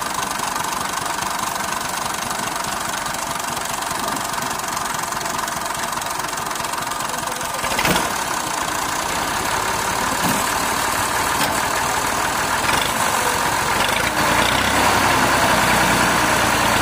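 Massey Ferguson tractor's diesel engine running steadily, with a single sharp clank about eight seconds in. Near the end it grows louder, with more low rumble, as it takes up the load of a trailer full of sacks.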